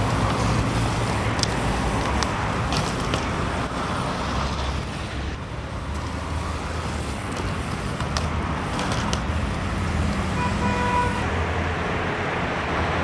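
Steady road traffic with a low engine rumble, and a short horn toot about ten seconds in.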